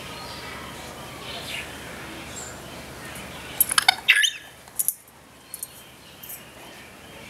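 African grey parrots giving soft calls, then a loud burst of short, sharp clicks and a brief gliding squawk a little past halfway, followed by a few softer clicks.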